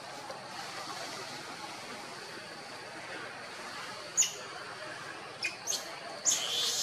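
Macaques squealing: one sharp, shrill squeak about four seconds in, then a quick run of louder high-pitched squeals and shrieks near the end as the monkeys scramble along the branches.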